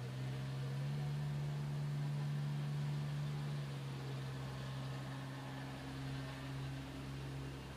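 An engine running at a steady speed, giving an even low hum.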